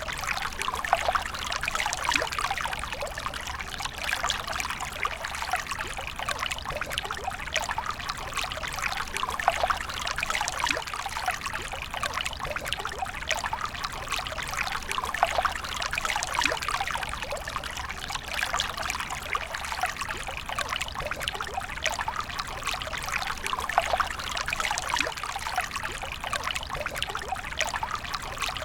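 A stream of water pouring and trickling steadily, with constant fine splashing and no break or change.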